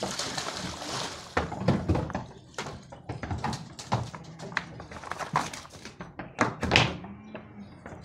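Merino ewes' hooves knocking and clattering irregularly on a slatted wooden floor and plank ramp.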